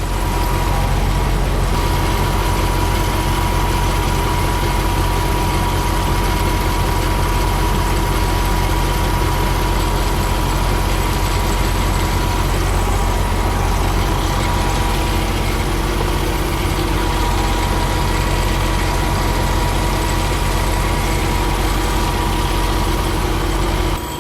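Diesel engine idling steadily: a loud low drone with a thin steady whine on top, dropping in level just before the end.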